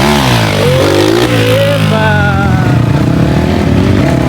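Dirt bike engines revving: the engine note drops sharply at the start, climbs again, then settles into a steady run. More than one bike is heard at once.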